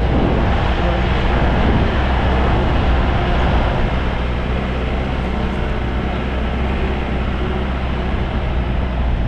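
A vehicle's engine running and road noise heard from inside the moving vehicle, as a steady loud drone with a low hum.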